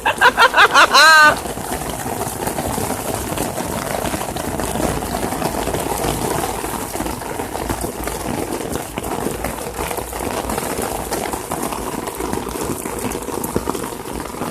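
Heavy rain pouring down in a steady downpour. A brief wavering, pitched call sounds in the first second before the rain is left alone.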